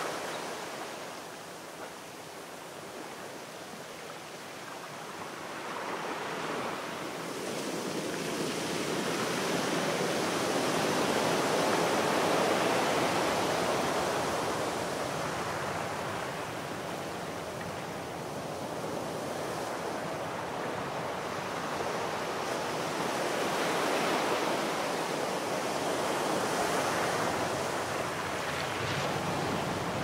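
Sea surf: waves breaking and washing ashore, a steady rush that swells and eases every several seconds.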